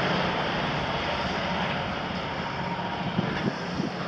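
Cat 352 hydraulic excavator's Cat C13 diesel engine running steadily with a low hum as the machine swings its boom and bucket, with a few short knocks near the end.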